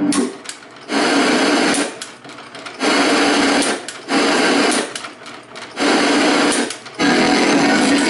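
The motor-driven channel tuner of a 1978 Zenith Chromacolor II set whirring round as the Space Command 600Z remote changes channels. The TV's own sound cuts in and out about five times, in noisy stretches about a second long, as the tuner passes through channels and then settles.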